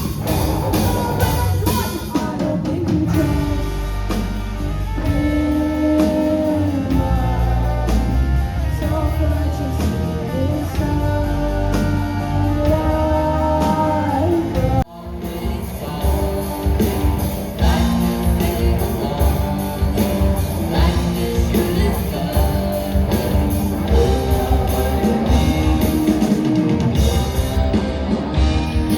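Rock music with electric guitar and drum kit; it breaks off abruptly about halfway through and resumes with a different passage.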